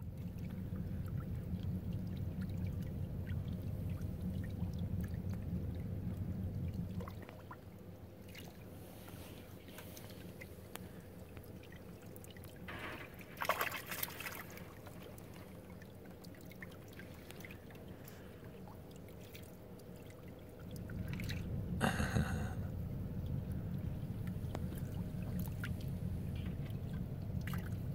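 Water splashing and trickling against a rocky shore as spawning Pacific herring churn in the shallows, with a louder splash about halfway through and another about three-quarters in. A low rumble runs under the first and last quarters.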